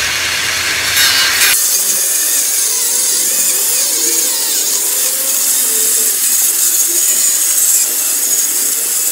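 Handheld electric power tool with an abrasive cutting wheel grinding through the steel barrel of an AR-15 rifle, throwing sparks: a steady, loud, high grinding hiss. The low rumble underneath drops away about one and a half seconds in.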